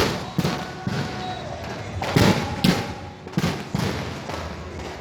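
Aerial fireworks bursting: a quick irregular series of about nine bangs, each trailing off in a rumbling echo, loudest about two seconds in.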